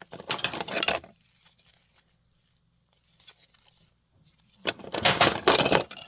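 Small wooden ornaments being handled and clattering against one another, in two bursts of rattling and clicking: one in the first second and a longer one starting about four and a half seconds in.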